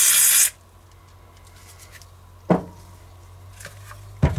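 An aerosol can of electrical contact cleaner hissing as it sprays into a wiring connector to flush out oil, stopping about half a second in. Two sharp knocks follow, about two seconds apart.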